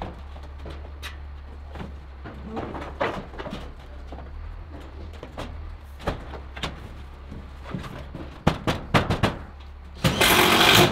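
Construction work noises: scattered knocks and clicks, a quick run of sharp knocks about eight and a half seconds in, then a loud noisy burst lasting about a second near the end.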